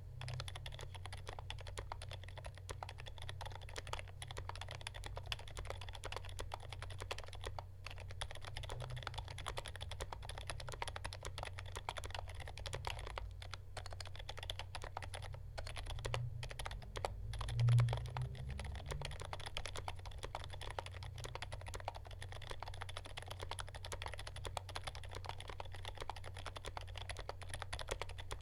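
Continuous typing on a mechanical keyboard with IDOBAO x Kailh Elf Ultra-Silent Purple tactile silent switches: a steady stream of muted keystrokes. A louder low thump comes about two-thirds of the way through.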